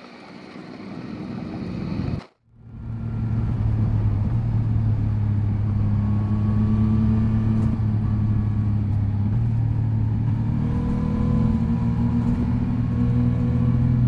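Yamaha MT-09 SP's three-cylinder engine heard from the rider's seat, rising over the first two seconds as the bike pulls away. The sound breaks off abruptly, then the engine comes back running at a steady, even note while under way.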